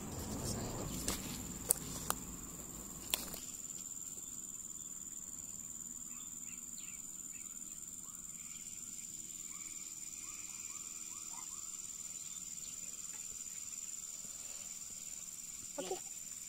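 Steady high-pitched insect drone of crickets. In the first three seconds a few sharp clicks and low rustling handling noise sound over it.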